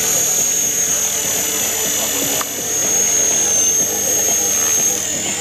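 Align T-Rex 550E electric RC helicopter in flight: its brushless motor gives a steady high whine over the lower hum of the spinning rotor. The whine dips slightly in pitch a couple of times near the end.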